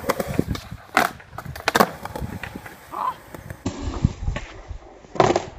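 Skateboard wheels rolling on concrete, with several sharp wooden clacks and slaps of the board being popped and landing during a kickflip trick attempt: a loud one about a second in, another just under two seconds in, and a third near the end.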